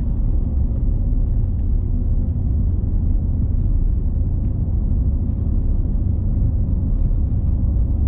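A car driving, a steady low rumble of engine and road noise.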